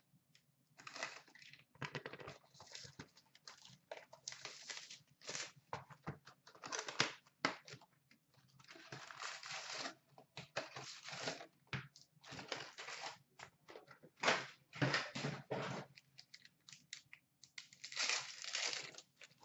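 Plastic wrapping on a box of Upper Deck SP Authentic hockey cards and its packs being torn open and crinkled by hand: a run of irregular ripping and crinkling bursts.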